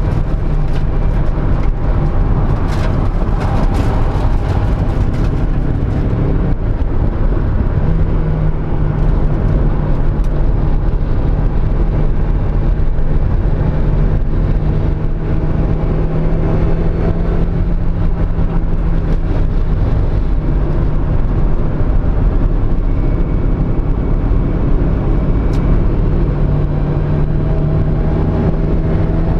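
Mazda Miata four-cylinder engine running hard at track speed, heard from on board with wind and road noise. The engine note steps to a new pitch about seven seconds in. The engine has a misfire on cylinder 2.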